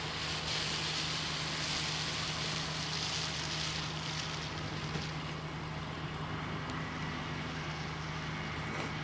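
Car tyres hissing through slush as a car passes close by, fading after about four seconds, over a steady low engine drone from a rotary snowplow working up the road.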